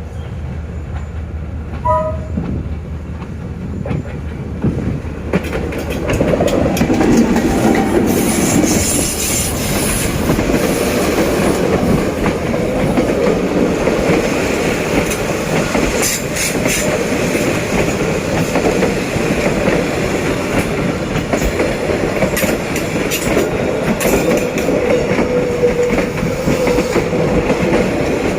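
D19E diesel-electric locomotive passing with a passenger train: a low engine rumble at first, growing much louder about six seconds in. The carriages' wheels then clatter over the rail joints, with a steady wheel squeal near the end.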